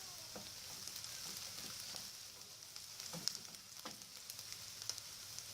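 Onion and garlic sizzling softly in hot oil in a pan: a steady hiss with a few scattered light clicks, the sharpest a little after three seconds in.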